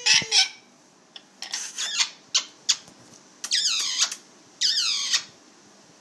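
Amazon parrot squawking: a run of short, sharp calls, then two longer calls falling in pitch near the end.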